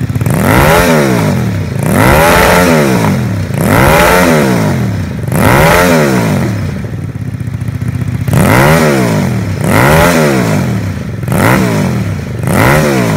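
A custom two-cylinder L-twin motorcycle engine blipped about eight times through a twin-tip Akrapovič exhaust. Each rev rises and falls in pitch, and there is a longer pause in the middle.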